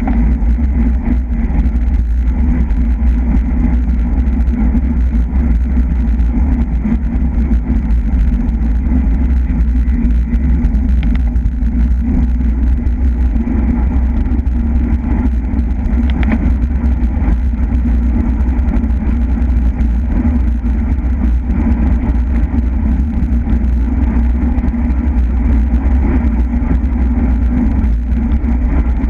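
Wind rushing over the microphone of a bicycle-mounted camera at race speed, a loud steady low rumble mixed with tyre noise on the road, with a faint click or two partway through.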